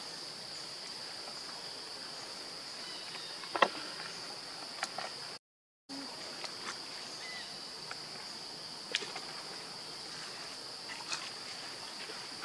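Steady high-pitched insect drone, crickets or cicadas, with a few scattered short clicks or taps, the loudest about three and a half seconds in. The sound cuts out completely for half a second near the middle.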